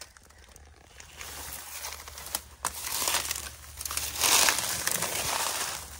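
Footsteps crunching and rustling through dry leaves and weeds. The sound starts about a second in and is loudest past the middle.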